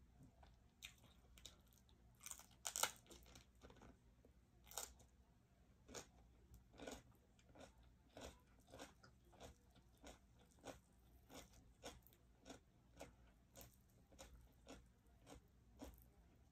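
A mouth chewing steamed cabbage, with soft wet crunches. A few louder bites come about two to three seconds in, then the crunches settle into a steady rhythm of about one and a half chews a second.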